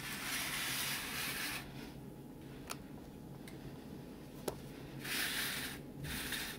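Soft rustling of streptocarpus leaves and flower stalks as a hand parts and handles them, in a few short stretches with a couple of faint clicks in the middle.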